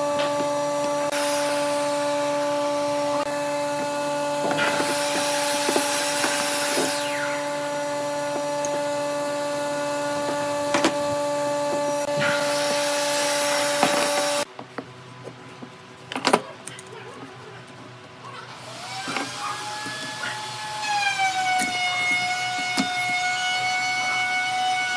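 Wood being brushed and handled on a workbench over a steady machine hum, with three bursts of scraping. About halfway through the hum stops suddenly, a sharp knock follows, and then a whining tone rises and settles into a steady pitch.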